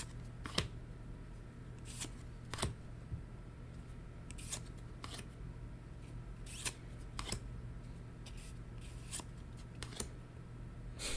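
Weiss Schwarz trading cards being handled from a freshly opened booster pack: a dozen or so soft, separate clicks and rustles as cards are slid and flicked against each other, over a low steady hum.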